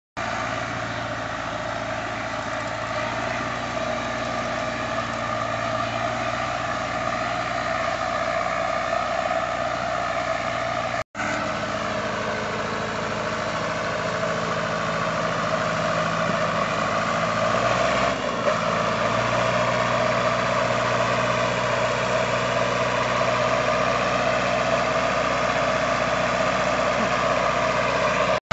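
Zetor 6911 tractor's four-cylinder diesel engine running steadily under load as it pulls a loaded manure trailer through mud. The sound cuts out for an instant about eleven seconds in, and the engine note shifts around eighteen seconds in.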